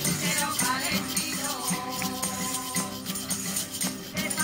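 Spanish Christmas carol (villancico) played by a street group: a steady rhythm of rattling, shaken hand percussion and tambourine over guitar and held notes, with voices joining in.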